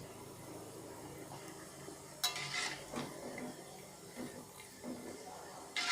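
A metal spoon clinking and scraping against a frying pan while stirring emping melinjo crackers in shallow hot oil, with a sharp ringing clink about two seconds in, lighter taps after it, and another sharp clink near the end. A faint frying sizzle runs beneath.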